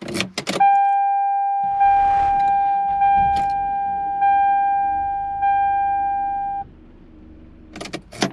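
A car's warning chime: a steady electronic tone that sounds again about every second and a quarter for some six seconds and then stops, with a low rumble underneath. A few sharp clicks come just before it and again near the end.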